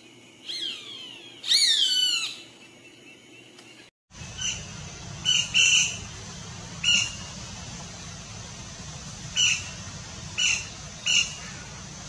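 Bird calls: two loud calls in the first couple of seconds that slide down in pitch. After a sudden break, about seven short, separate chirps sound over a steady background noise.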